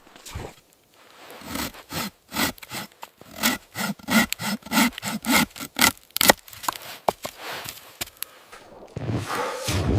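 Saw cutting through wood, a rhythmic rasping of about two strokes a second that stops about six seconds in.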